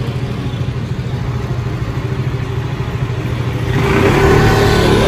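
City street traffic: a motor vehicle engine runs low and steady, then grows louder near the end as a vehicle accelerates or passes close by.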